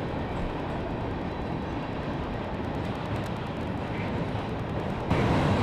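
Freight train rolling across a steel trestle bridge: a steady rumble of wheels on rails. About five seconds in, the sound turns lower and a little louder.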